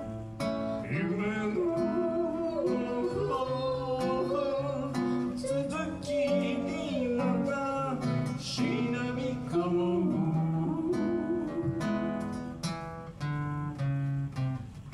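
A man singing a song to his own acoustic guitar accompaniment, strumming and picking chords.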